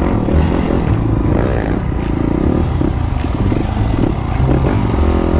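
Dirt bike engine running while being ridden along a street.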